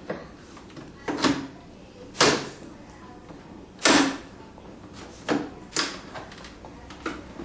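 Plastic motorcycle fairing panel knocking and clacking against the bike as it is rocked and pushed into place: about seven irregular knocks, the loudest about four seconds in.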